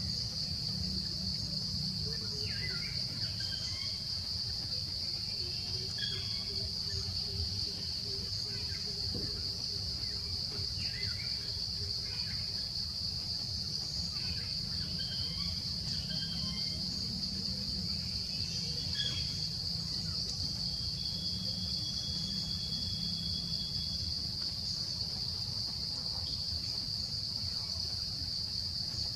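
A steady, high-pitched insect chorus of forest crickets or cicadas, over a low rumble, with scattered short high chirps and one brief held whistle a little past halfway.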